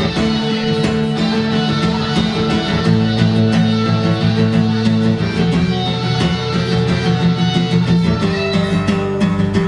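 A live band plays an instrumental passage: strummed acoustic guitar over held chords that change every few seconds, steady and loud.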